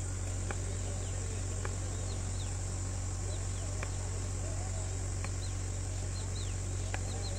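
Crickets or other night insects trilling steadily over a constant low hum, with a few short falling chirps and faint distant voices.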